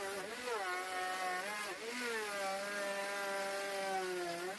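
Handheld electric router running as it cuts a decorative profile along the edge of a wooden window frame with a half-inch bit. It gives a steady high motor whine whose pitch dips briefly now and then as the bit takes load in the wood.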